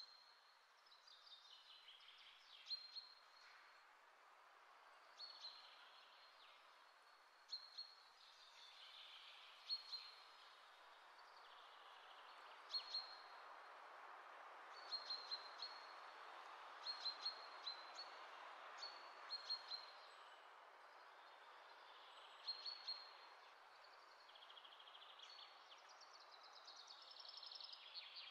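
Faint, repeated bird chirping: short clusters of high chirps every two seconds or so, over a steady low hiss of background noise.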